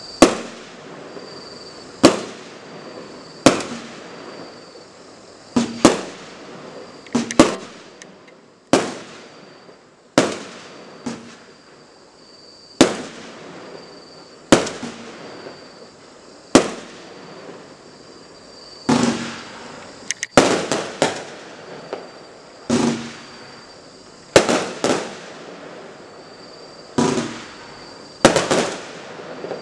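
Standard Fireworks Euphoria firework cake firing shot after shot. A sharp bang comes every one to two seconds, some in quick pairs, and each one dies away over about a second.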